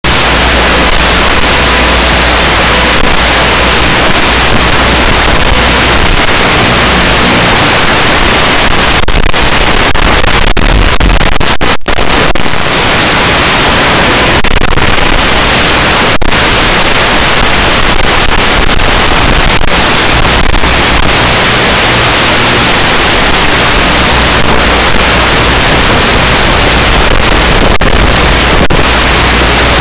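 Loud, steady hiss like radio static, with a few brief dropouts about ten seconds in.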